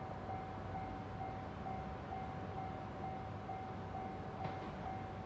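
Japanese level-crossing warning bell ringing, one pitched ding repeated evenly a little over twice a second, signalling that a train is approaching.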